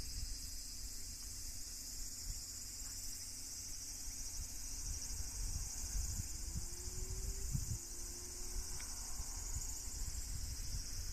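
Steady, high-pitched chorus of insects, with an uneven low rumble underneath and a faint, slightly rising hum that lasts about two seconds near the middle.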